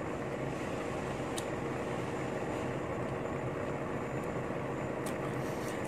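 Steady background noise with a faint low hum, broken by a couple of faint clicks.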